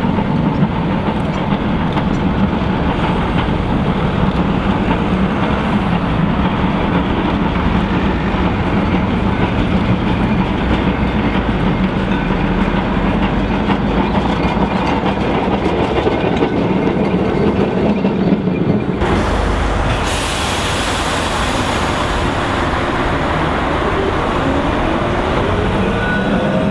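Blackpool heritage trams running on street track: a steady running hum with wheels clicking over the rails. About two-thirds through, the sound changes abruptly to a closer pass with more hiss, and a faint rising whine comes in near the end.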